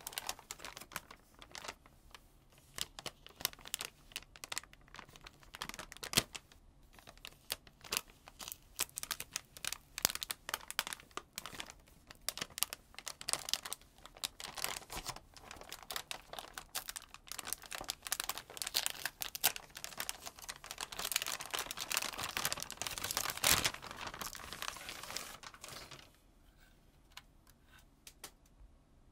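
Clear plastic bag around a graphics card crinkling and crackling as the card is worked out of it: a dense, irregular run of crackles, busiest and loudest just before it stops near the end.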